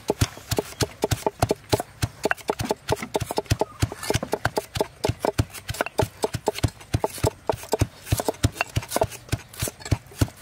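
Wooden pestle pounding sliced lemongrass and garlic in a stone mortar: a fast, even run of thuds, several strokes a second.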